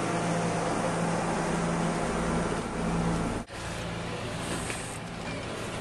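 A steady mechanical hum, like a motor running, over outdoor background noise. The sound drops out abruptly for an instant about three and a half seconds in.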